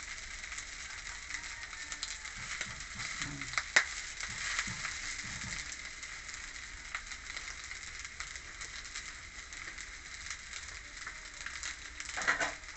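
Cooked rice sizzling as it fries in a pan, a steady hiss, while more rice is scraped in from a plate. A sharp click about four seconds in and a brief louder noise near the end.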